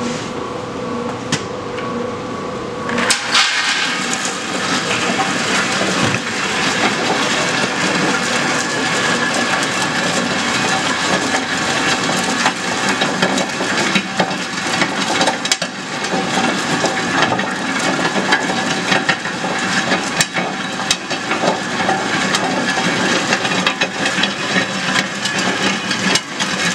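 Locomotive 1000 cone nut cracker's motor running with a steady hum. About three seconds in, the almonds reach the cracking chamber and a dense, continuous rattle and grinding starts as the fibrous husks are stripped and some shells crack.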